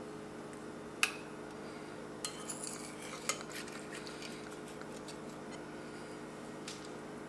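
Metal serving spoon clinking against a white ceramic plate while salad is served onto it: one sharp clink about a second in, then a few lighter clinks and taps, over a steady low hum.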